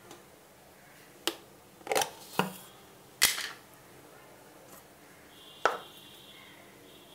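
Light clicks and knocks of kitchen utensils and containers being handled, about five separate ones spread over a few seconds.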